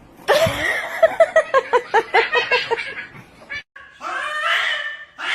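A cat caterwauling in a fast run of short pitched cries, about six a second, that stops abruptly about three seconds in. A longer drawn-out cry follows near the end.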